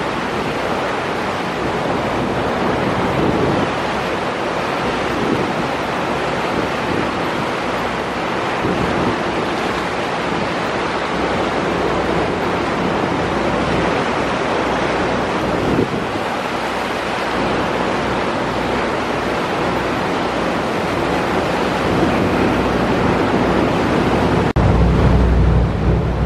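Wind buffeting the microphone and water rushing past the hull of a boat underway, with a low engine drone beneath. A heavier low wind rumble on the microphone in the last couple of seconds.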